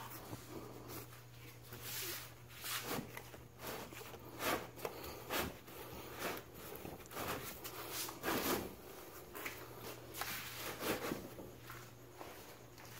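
Irregular scuffing, scraping and rustling with sharp light knocks, the sounds of a person moving about and handling things, over a steady low hum.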